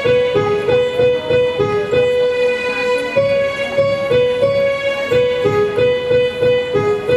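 Electronic keyboard playing a slow melody of long held notes that step between a few nearby pitches, over a steady low rhythmic pulse.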